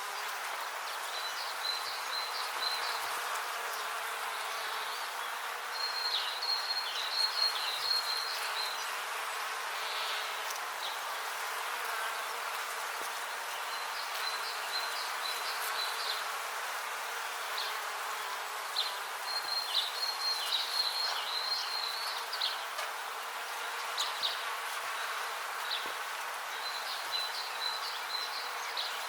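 Bees buzzing in a steady, dense hum. Short clusters of high chirping recur every few seconds over it.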